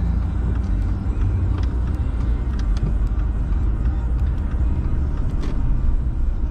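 Car driving, heard from inside the cabin: a steady low road and engine rumble, with a few faint clicks.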